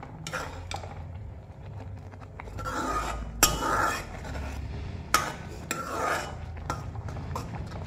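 Metal spoon scraping and clinking against a metal kadai while stirring a thick masala paste. There are two sharper knocks of the spoon on the pan, about three and a half and five seconds in.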